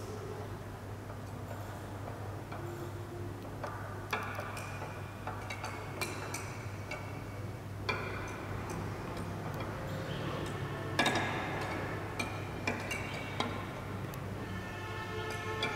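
Irregular ticks and clicks, several followed by short ringing tones, over a steady low hum; the loudest cluster comes about two-thirds of the way through.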